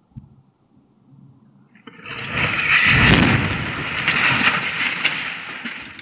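House explosion: a sudden loud blast about two seconds in that swells for a second and then rumbles away over the next few seconds, picked up by a security camera's microphone.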